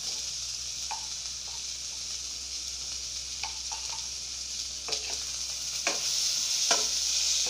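Spiced grain, chickpeas and potato pieces sizzling in oil in a nonstick wok, a steady high hiss. From about five seconds in, a wooden spatula stirs the mix, adding scrapes and clicks against the pan and making the sizzle louder.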